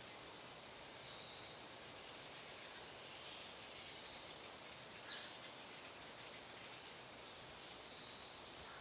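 Faint bird calls over a steady outdoor hiss: a short high note repeated about every three seconds, and one sharper, higher chirp with a falling tail about five seconds in.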